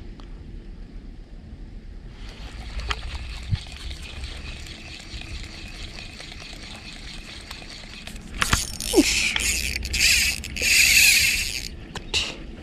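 Small spinning reel (Ryobi Smurfs 500) being cranked on an ultralight rod, a steady fine whirring tick as the line is wound in. About eight seconds in come a few sharp knocks and then a louder rasping burst lasting over a second.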